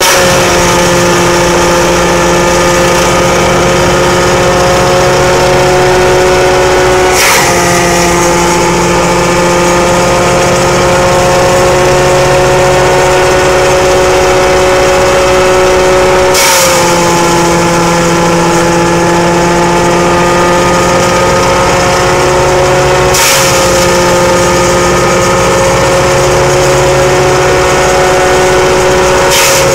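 Tractor-driven shredder-grinder running steadily with a whining, multi-toned hum from its spinning rotor and the tractor engine. Four times a short crash of noise as a load of stalks is chopped, the pitch sagging briefly under the load before recovering.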